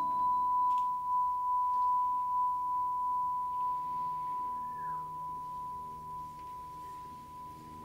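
A single high, pure ringing tone held and slowly fading as the last sound of a piece, with faint low sustained notes underneath.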